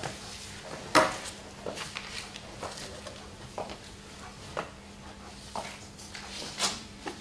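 Slow footsteps on a hard floor: a few short, sharp knocks about a second apart, the first the loudest, over a steady low hum.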